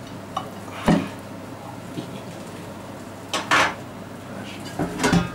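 Metal fork and a whole smoked chicken knocking against a ceramic plate: a few short clinks and clatters. The longest and loudest rattle comes past the middle, and another pair comes near the end.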